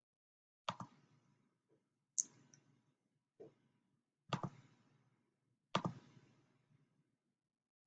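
Five separate sharp clicks, irregularly spaced about a second or so apart.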